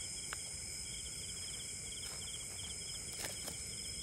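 Insects shrilling: a steady high drone with a fast chirping trill repeating several times a second over it. Faint clicks come about three seconds in.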